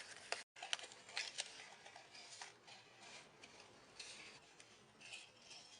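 Paper and cardboard being handled on a work surface: scattered light clicks, taps and short rustles.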